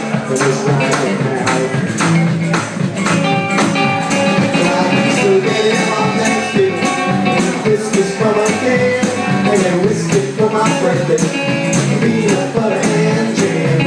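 Live band playing an instrumental passage with guitar and drums: a steady, even beat under a wavering guitar line.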